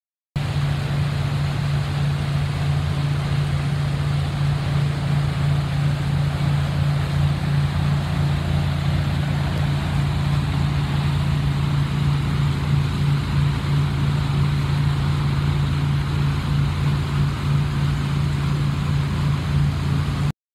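Boat engine running steadily: a low, unchanging drone with a wash of wind and water noise over it. It cuts in abruptly just after the start and cuts off abruptly near the end.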